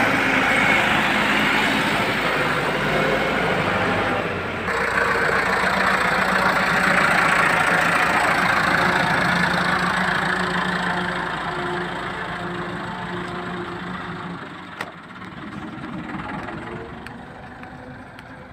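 Massey Ferguson 385 tractor's diesel engine running steadily as it hauls a heavily loaded trolley past. The engine sound fades over the last several seconds as the tractor moves away.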